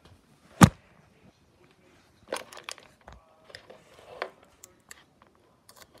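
Handling noise: one sharp knock about half a second in, then scattered clicks and rustling from the second half onward.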